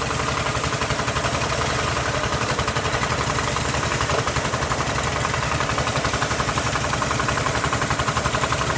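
Engine of the water pump that feeds a pressure hose, running steadily with a fast, even chugging pulse.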